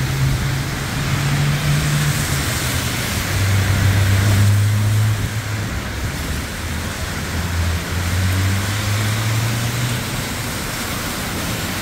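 Heavy rain pouring steadily, with a motor vehicle's engine giving a low, steady hum through most of it, dropping in pitch partway through.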